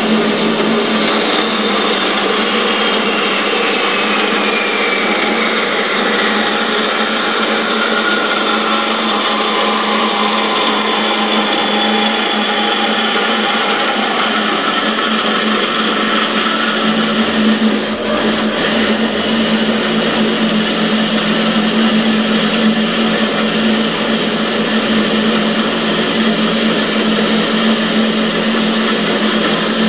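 Horizontal metal-cutting band saw running and cutting through square steel tubing under a heavy feed, with a steady motor hum under the blade's cutting noise. A high whine slides slowly downward over the first half of the cut, and about eighteen seconds in the sound turns rougher and lower.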